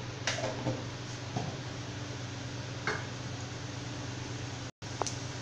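Mustard seeds and urad dal heating in a little oil in an aluminium kadai: a faint steady sizzle with a few soft ticks, over a low steady hum.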